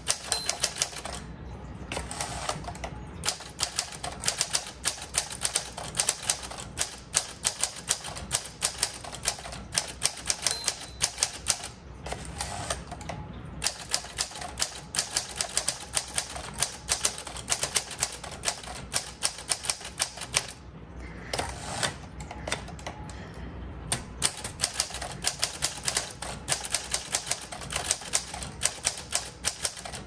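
1946 Smith Corona Sterling Speedline manual typewriter being typed on at a quick, even pace: rapid keystroke clacks as the typebars strike the platen, broken by a few short pauses. The machine is typing well and getting into a flow.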